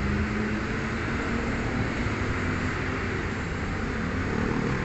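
Toyota Rush engine idling steadily while the automatic transmission is shifted through its gears to circulate freshly added transmission fluid.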